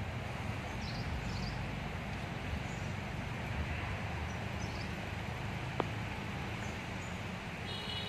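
Outdoor ambience: a steady low rumble and hiss, with faint high chirps now and then, a single sharp click a little before six seconds in, and a short high call near the end.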